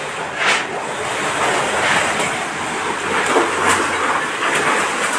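Typhoon wind rushing through a storm-wrecked shop and buffeting the microphone, in gusts that swell and ease, with a few short clattering ticks.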